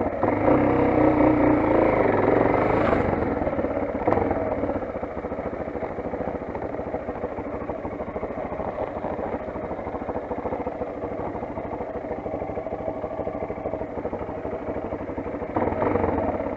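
Motoland XR 250 enduro motorcycle's single-cylinder four-stroke engine running: louder for the first four seconds or so, then settling to a steady, lower note, with a brief rise again near the end.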